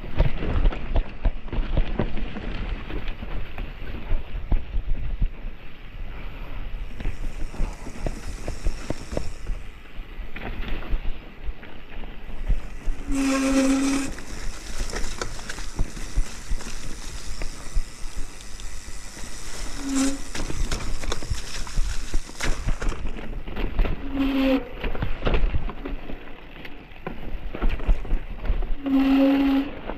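Mountain bike ridden over a rough trail: a constant run of rattles and knocks from the bike, with wind rumbling on the microphone. A few short low tones sound about halfway through and again near the end.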